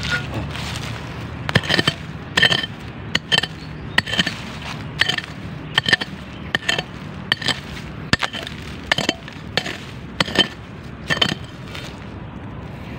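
A hand hoe digging into stony soil, about twenty sharp strikes at an uneven one to two a second, each a short clink or scrape, some with a brief metallic ring.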